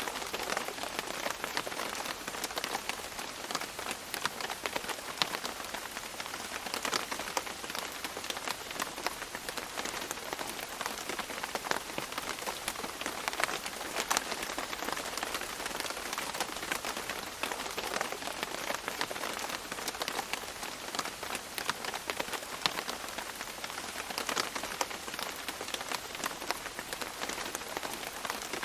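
Steady tropical rain pattering on rainforest leaves, with many separate drops ticking through a constant hiss.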